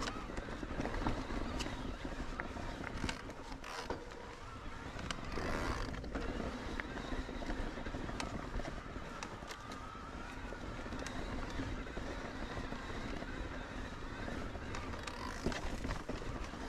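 Electric mountain bike ridden over a rough trail: a steady rumble of tyres and wind on the helmet camera's microphone, with frequent sharp rattles and clicks from the bike and a faint whine that rises and falls.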